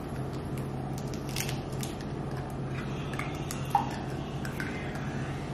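Light clatter of kitchen bowls and utensils being handled: scattered soft taps and one clearer clink nearly four seconds in, over a steady low hum.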